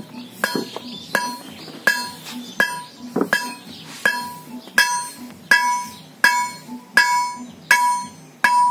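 Blacksmith's hand hammer striking red-hot iron on a steel anvil block, a steady beat of about three blows every two seconds. Each blow rings with a clear metallic tone.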